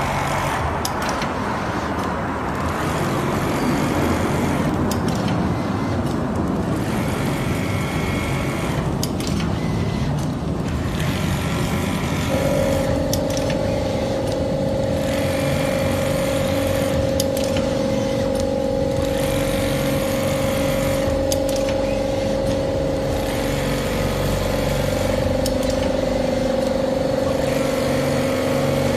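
TYPICAL TC151A computerized template sewing machine running, its sewing head travelling over the template as it stitches, giving a steady mechanical whir. About halfway through a steady whine joins in and holds.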